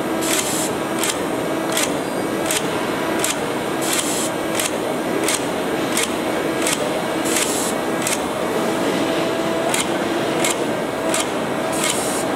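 TWISTER automatic die gluing and rubbering machine running, with the steady hum of its drives. Sharp clicks come about twice a second, unevenly spaced, as its head sets green rubber pieces into a cutting die. A few short hissing bursts are heard, about four seconds apart.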